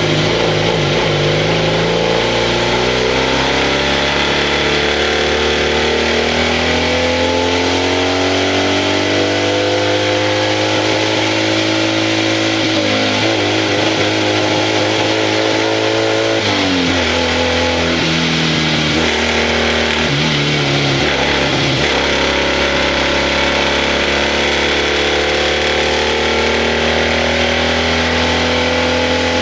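BMW 700 RS's air-cooled flat-twin engine pulling hard uphill, heard from inside the cockpit: the revs climb steadily for the first dozen seconds, waver, drop sharply a little past halfway, then climb again toward the end.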